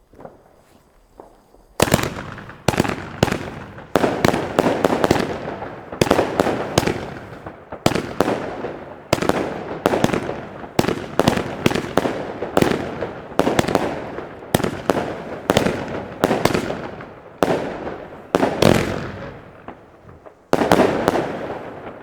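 Funke Scala S 25 B firework battery firing shot after shot, starting about two seconds in: a long run of sharp bangs, each trailing off, roughly one or two a second.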